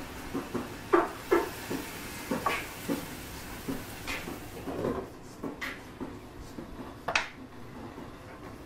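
Wooden spatula knocking and scraping against a skillet as diced turnips are stirred, a knock every half second or so. A sharper clink about seven seconds in as the glass lid is set back on the pan.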